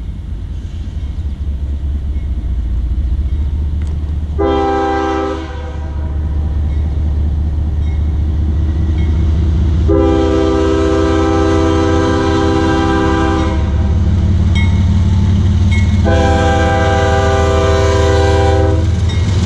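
CSX freight train's diesel locomotives approaching, their low engine rumble building steadily, while the lead locomotive's air horn sounds a chord three times for the grade crossing: a short blast about four seconds in, then two long blasts.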